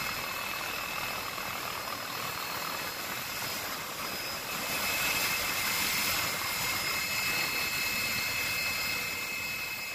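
Helicopter noise heard from inside the cabin: a steady rushing drone with a constant high turbine whine, swelling slightly midway.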